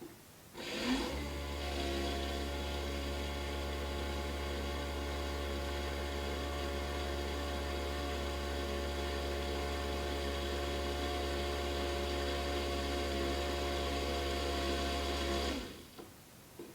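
Dishwasher pump motor starting about a second in with a short rising whine, then running with a steady hum and whir, and switching off shortly before the end.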